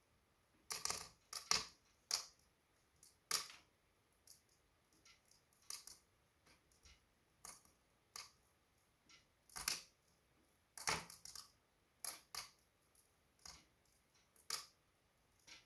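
Wood fire in a fireplace crackling: irregular sharp pops and snaps, one or two a second, with quiet gaps between them.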